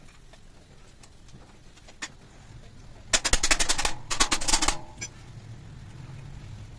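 A rapid mechanical rattle of fast, even clicks in two short bursts, one after the other, about halfway through, from a machine or power tool used on the seat.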